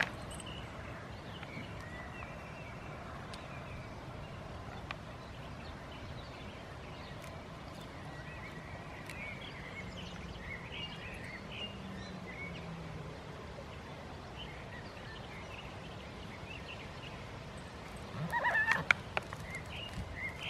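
Two goats head-butting in play: sharp knocks as their heads clash, one right at the start and a quick cluster of knocks near the end, over a steady outdoor background hiss.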